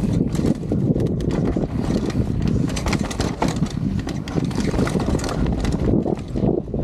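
Mountain bike descending a dirt trail at speed: wind buffeting the microphone over the rush of the tyres, with rapid clicks and rattles from the bike jolting over bumps.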